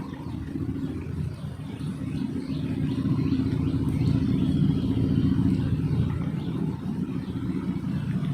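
Steady engine hum, swelling through the middle and easing off again.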